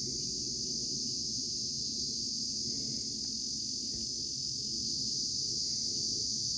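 A steady, high-pitched insect chorus drones without a break, over a low rumbling haze.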